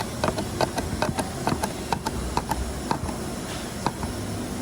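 Screw being driven into the door card trim with a hand screwdriver: a run of quick small clicks, several a second, thinning out near the end.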